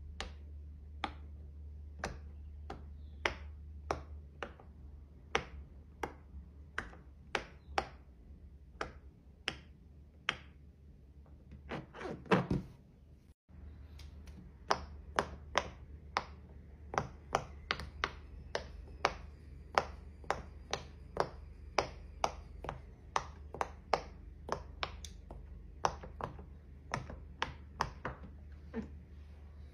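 Fingertip pressing the silicone bubbles of a pop-it fidget toy one after another: a steady run of sharp little pops, about one or two a second, with a short break about halfway through.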